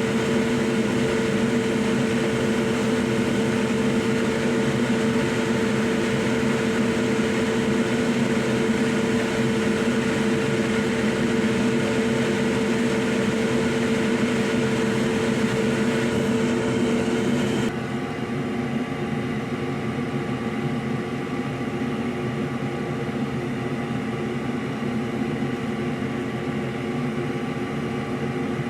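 Steady machine hum from a small electric motor with several constant tones. About eighteen seconds in, the strongest tones cut off suddenly, leaving a quieter steady hum.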